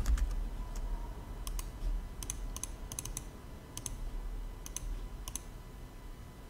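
Computer keyboard keystrokes and clicks, irregular and often in pairs or small clusters, over a faint steady hum.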